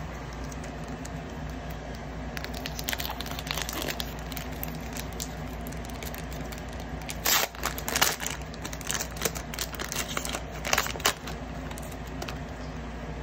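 Foil Pokémon booster pack being torn open and crinkled by hand: scattered crackling, then a louder run of tearing and crinkling from about seven to eleven seconds in, over a steady low hum.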